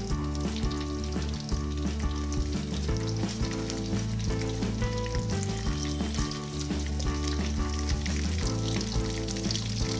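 Fish pieces frying in oil in a steel wok, sizzling and crackling steadily while a metal spoon turns and scrapes them, with background music.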